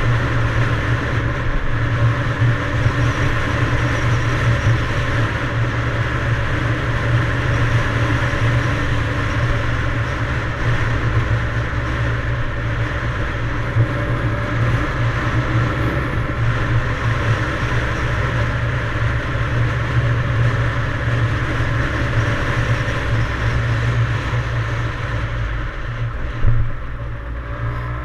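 Yamaha DT175 dirt bike's two-stroke engine running steadily under way, with a dense rushing noise over it. About 26 seconds in, the sound briefly jumps and then drops to a lower level.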